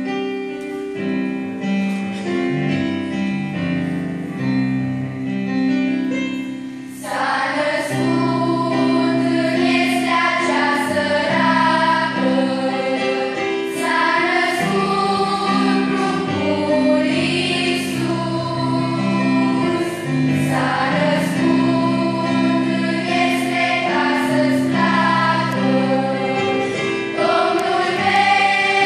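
A mixed children's and youth choir singing a Christmas hymn with keyboard accompaniment; the voices grow much louder about seven seconds in and stay strong.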